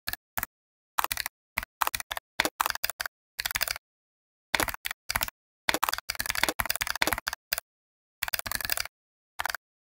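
Computer keyboard typing: quick runs of keystrokes in bursts, separated by short gaps of dead silence.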